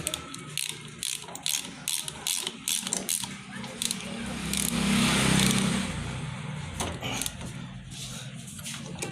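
Irregular metal clicks from hand tools as the 14 mm magneto flywheel nut on a motorcycle engine is tightened with a tommy bar, the flywheel held by a holder tool, with a brief scraping about five seconds in.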